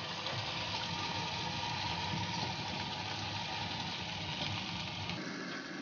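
Raw potato slices sizzling steadily in hot cooking oil in a frying pan as more slices are laid in one at a time, over a low hum that cuts out near the end.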